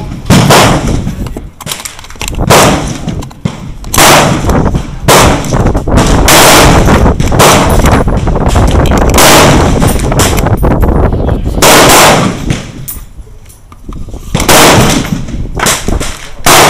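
Rifle shots from other shooters on a public range's firing line, about a dozen sharp reports at irregular intervals, each followed by a ringing echo.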